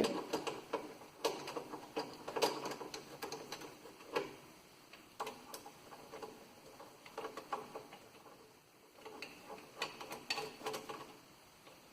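Screws being driven by hand into a power switch's mounting base: irregular light clicks and ticks in short clusters, with pauses between, the last cluster about nine to eleven seconds in.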